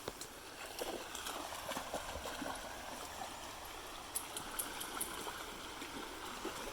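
Creek water running steadily, with scattered light clicks and rustles over it.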